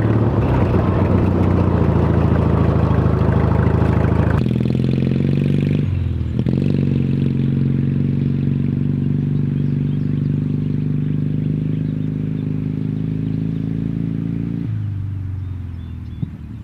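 Small lawn tractor engine running loud through an exhaust with empty drink cans fitted over the pipes. For the first four seconds it runs hard and rough, then settles to a steady, even note, and it slows near the end. The cans add no rattle.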